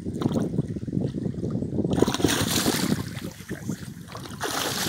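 Water splashing as a common carp on a stringer thrashes in the shallows, loudest in two bursts, about two seconds in and near the end, over wind buffeting the microphone.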